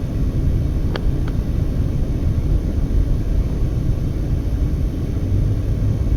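Steady low rumble of a car on the move: tyre and road noise heard from inside the cabin, with two faint ticks about a second in.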